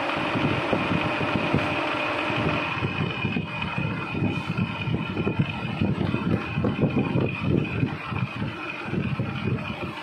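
Conventional metal lathe running: a steady machine hum with an uneven, fluttering low rumble that grows stronger a couple of seconds in.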